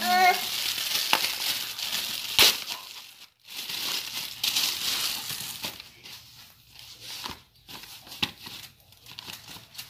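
Plastic mailer packaging crinkling and rustling as a parcel is unwrapped by hand, with one sharp, loud crackle about two and a half seconds in. In the second half the rustling thins out to scattered crackles.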